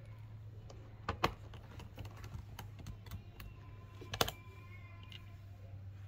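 Light clicks and taps of a small metal screwdriver and its bit being handled, with a sharper click about a second in and another about four seconds in that rings briefly, over a steady low hum.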